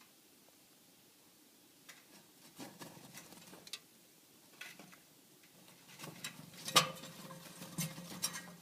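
Jackdaw trapped inside a wood stove, scattered scratching and scuffling of its claws and wings against the stove, growing busier in the second half with one sharp knock near the end.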